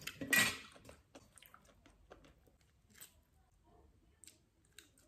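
Close-up eating sounds: one loud wet mouth sound about half a second in as a piece of shellfish is eaten, then faint chewing and a few small clicks and crackles as a cooked shrimp is pulled apart by hand.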